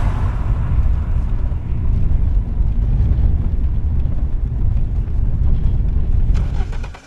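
Steady low rumble of road traffic, dropping away abruptly at the very end.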